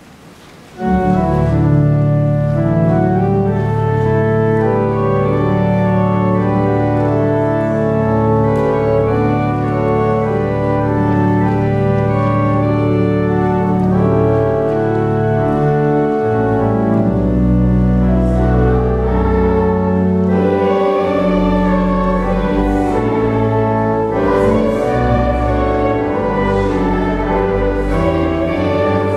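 Church organ playing sustained chords, starting suddenly about a second in. Voices of the girls' choir join over the organ in the second half.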